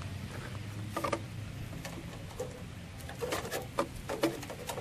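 Plastic drain pipe fittings knocking and scraping as they are handled and pushed together: a knock about a second in, then a quick run of clicks and knocks toward the end.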